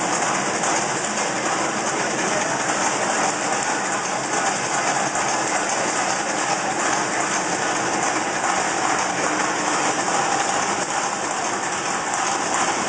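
Puffed corn snack production line running: a steady, even noise of the machinery and conveyors moving the puffed pieces along metal trays.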